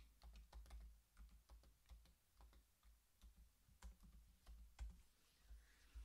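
Faint typing on a computer keyboard: a run of separate, irregular keystroke clicks.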